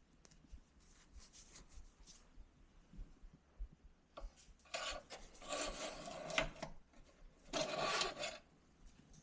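Engine oil dipstick being drawn, wiped on a rag and slid back into its tube to check the oil level. A few faint clicks come first, then two stretches of rubbing, a longer one about five seconds in and a shorter one near the end.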